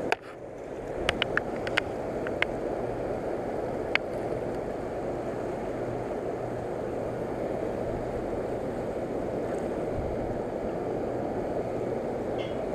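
Steady rushing of the Niagara River's fast current, with a few sharp clicks in the first four seconds.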